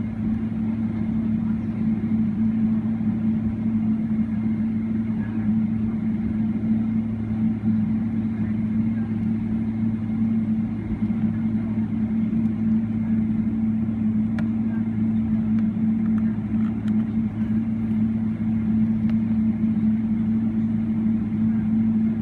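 Cabin noise inside a Boeing 777-300ER while it taxis, its GE90-115B engines running at idle: a steady low drone with a constant hum and no change in pitch.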